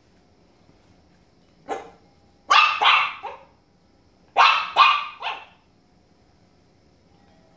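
Small dog barking: one short bark, then two quick runs of three barks.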